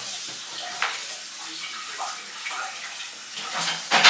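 Steady rush of running water, like a tap left running, with a few faint short clinks and a brief louder sound near the end.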